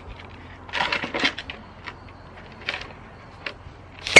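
Short bursts of compressed air from a blow gun pressed against a brake caliper's line port to force the piston out, over a low steady hum. A loud, sharp metallic clank with a brief ring comes near the end.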